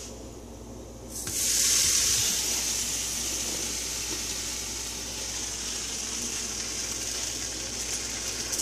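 Buttered bread sizzling in a hot stainless-steel frying pan: a hiss that starts suddenly about a second in as the bread goes down, is loudest just after, then settles to a steady sizzle.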